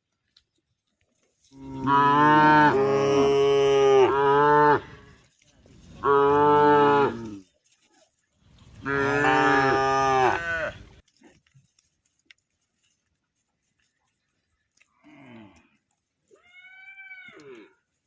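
Cow mooing: three long, loud moos in close succession, then two fainter, higher-pitched calls near the end.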